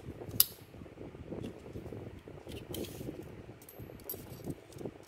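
A metal clamp and a steel tape measure being handled: one sharp metallic click about half a second in, then lighter clicks and knocks of the metal parts over rustling handling noise.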